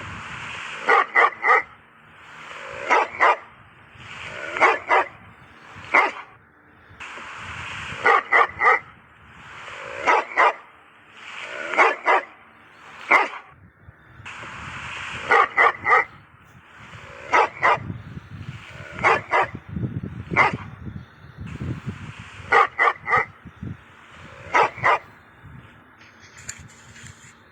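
A dog barking over and over: short sharp barks in quick groups of one to three, a pause of a second or two between groups.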